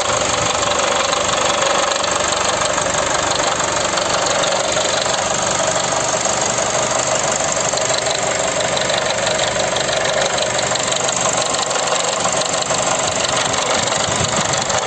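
Nissan Primera P12's YD22DDT 2.2-litre four-cylinder turbodiesel idling steadily with a rapid clatter. This is the extraneous engine noise the owner is showing, which appears mainly when the engine is warm.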